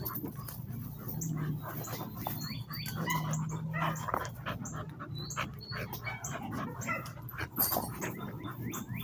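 American pit bull terriers close by giving short whines, among many light clicks and rustles.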